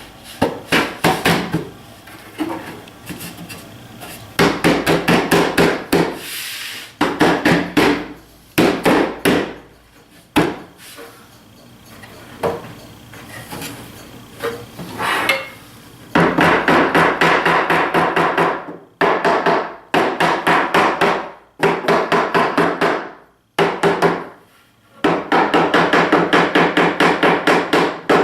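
Rapid knocking on wood, fast runs of sharp taps in bursts of a few seconds with short pauses between, as a wooden shelf is driven into its notches.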